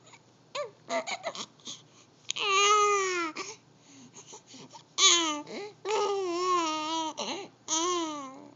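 A two-month-old baby cooing: a few short sounds, then long, drawn-out vowel sounds that waver in pitch, the longest lasting about two seconds.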